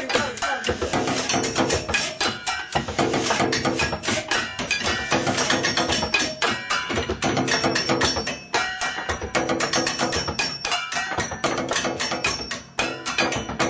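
Fast, continuous improvised drumming on kitchen objects: dense rapid strikes, some of them ringing on with a held pitch like struck metalware.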